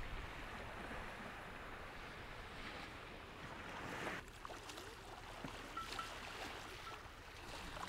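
Steady outdoor wash of wind and small waves on a beach. About four seconds in it changes to a slightly quieter sound of calm water lapping, with a few faint chirps.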